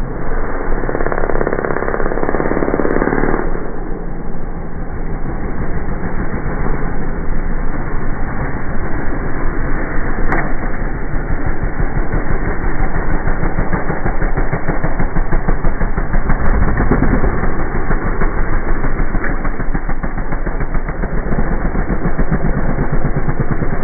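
Motocross bike engines revving as the bikes ride along a sand track, heard muffled, with a rapid, continuous pulsing.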